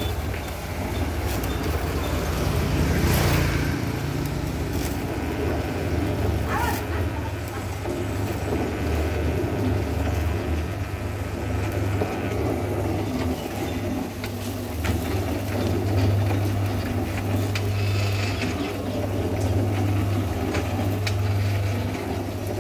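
Homemade mini cement mixer, a blue plastic drum turned by an electric motor, running steadily with a low hum while the drum is tilted to empty its cement mix into a wheelbarrow.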